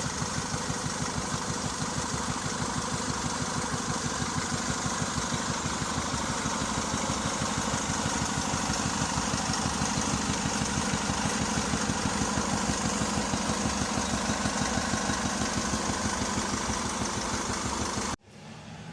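Car engine idling with a steady, even pulse that cuts off suddenly near the end.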